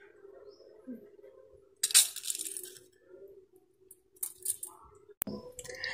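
Soaked rice grains tipped from a glass bowl into a steel bowl: a short rattling hiss of grains landing on the metal about two seconds in, then a few lighter patters and one sharp click near the end, over a faint steady hum.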